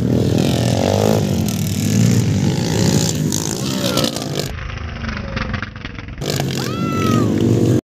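Motocross dirt bike engine revving hard, its pitch rising and falling as the bike goes over a jump on the dirt track.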